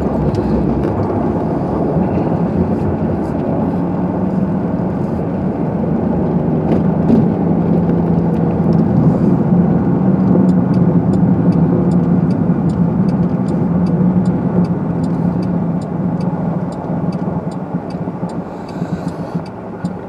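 Car engine and road noise heard from inside the cabin while driving, with a steady low hum. From about six seconds in a turn-signal indicator clicks steadily, and the running noise drops over the last few seconds as the car slows to a stop.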